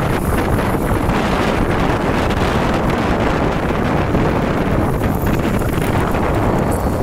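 Heavy wind buffeting the microphone of a camera travelling along a road in the open, over a low steady rumble of road and traffic noise.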